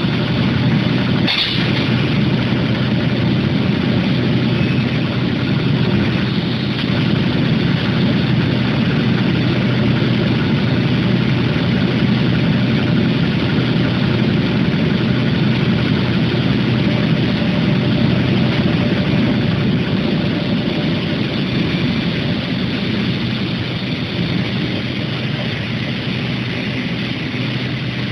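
Induction heating line for piston rods running: a steady low hum over broad machine noise, with one sharp clack about a second and a half in.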